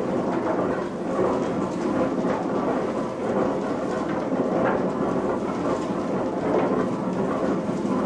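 Snuff-mill machinery running: a steady, dense rumble and clatter from turning line shafting in its plain bearings, drive belts and gearing, with a few faint knocks in it.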